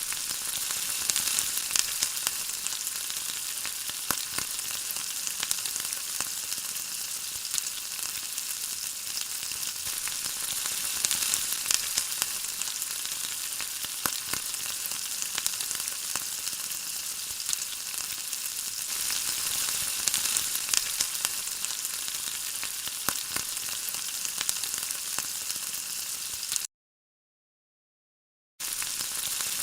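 Paneer tikka skewers sizzling and crackling in oil or butter on a hot iron tawa, a steady frying hiss with many small pops. It cuts out completely for about two seconds near the end, then resumes.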